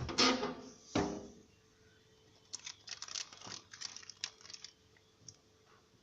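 Rustling and crinkling handling noise: two loud swishes in the first second, then a run of small crackles and clicks.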